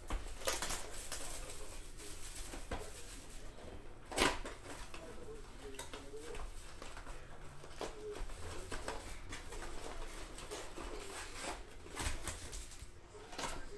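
Trading-card packs and cards being handled: rustling and sharp clicks, the loudest about four seconds in, over a faint wavering tone.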